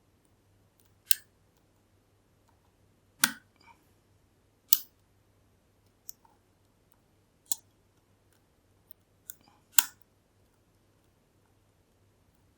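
Sharp metallic clicks and taps, about eight at uneven intervals, from a dimple pick and tension tool working the pins of a Kale Kilit 10-pin dimple lock.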